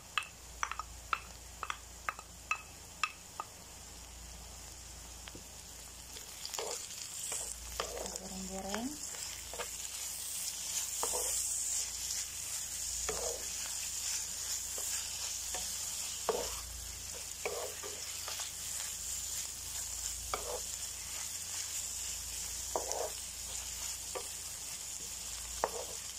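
Shredded chicken breast, shallots and garlic sizzling in oil in a frying pan, stirred with a wooden spatula that scrapes and knocks against the pan every second or two. A quick run of sharp taps opens it, and the sizzle grows louder from about six seconds in.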